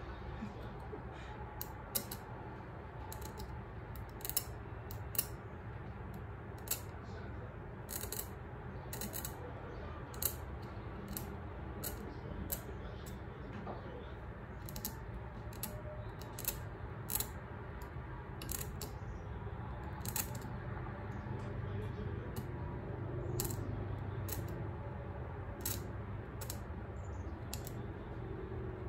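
Steel Gracey curette scaling the teeth of a dental typodont: sharp, irregular clicks and scrapes, roughly one a second, as the blade strokes against the model teeth, over a low steady hum.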